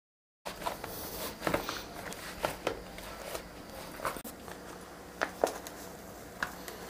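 Hands kneading a stiffening simit dough in a plastic bowl: soft squishing with scattered knocks and slaps against the bowl. It starts about half a second in.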